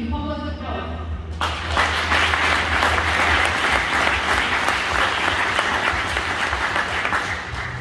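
Audience clapping, starting suddenly about a second and a half in and dying away near the end.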